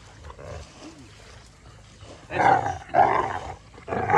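Dog growling in a few loud, rough bursts, starting a little over two seconds in: the grumbling of dogs at rough play.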